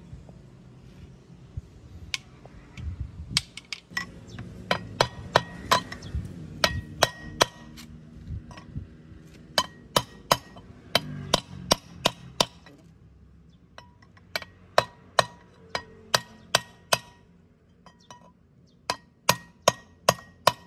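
Hammer blows on metal: a run of sharp, ringing strikes about two a second, pausing twice before starting again.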